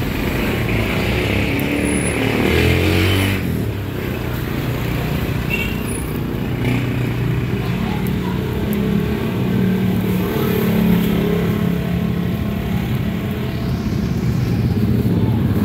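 Street traffic: motor vehicle engines running and passing, steady throughout, with one vehicle louder for a moment about three seconds in.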